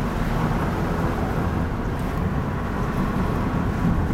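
Steady low rumble of a car's road and engine noise heard from inside the cabin as it drives downhill.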